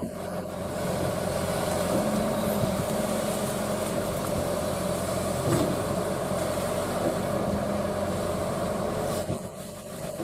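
Excavator's diesel engine running steadily under working load, with a single knock about halfway through; the engine eases off near the end.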